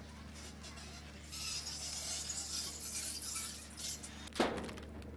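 Light clinking and jingling for about two seconds, then a single sharp knock near the end.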